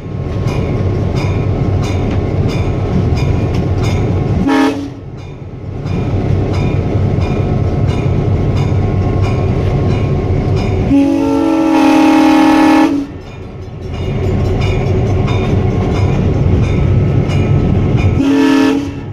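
Soo Line FP7 locomotive's air horn, heard from inside the cab, sounded for a road crossing: a short blast about four seconds in, a long blast of about two seconds in the middle, and a short blast near the end. Between the blasts the locomotive's EMD 16-567 two-stroke V16 diesel runs steadily under load.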